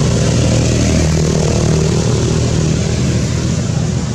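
A motor engine running steadily and loudly, a low hum with a broad hiss over it.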